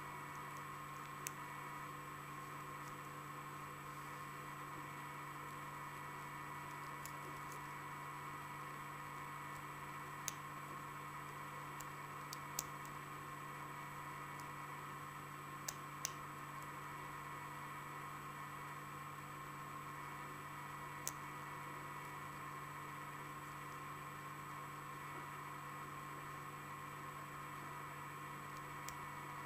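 Scattered faint metallic clicks of a lock pick and tension wrench working the pins of an American 1105 padlock during single-pin picking, about nine in all, over a steady background hum and hiss.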